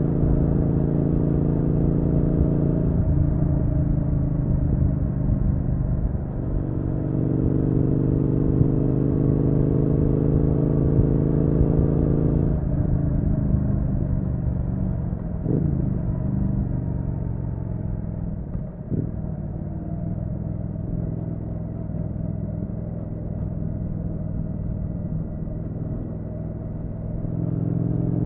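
Triumph Street Twin's 900 cc parallel-twin engine heard onboard while riding: rising in pitch as it accelerates, with a gear change about three seconds in, then the throttle eases off about twelve seconds in and it runs more quietly until it pulls again near the end.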